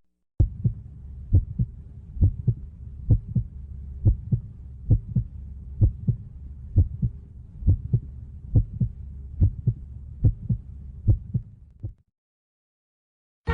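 Heartbeat sound effect: paired low thumps, a double beat about once a second, over a faint steady hum. It stops abruptly about a second and a half before the end.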